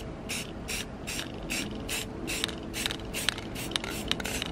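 Aerosol can of black spray paint sprayed through a paper stencil in quick short bursts, about three to four hisses a second.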